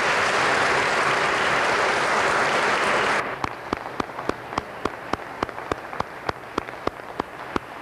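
Congregation applauding: loud, dense clapping that cuts off abruptly about three seconds in, followed by single sharp claps about three or four a second.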